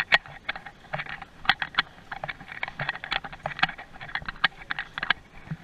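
Rapid, irregular light clicks and taps, several a second, with an occasional dull knock under them.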